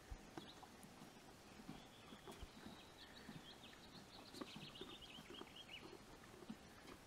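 Faint sounds only: soft, irregular low crunches of a young foal nibbling hay. A bird twitters a quick run of high chirps in the middle.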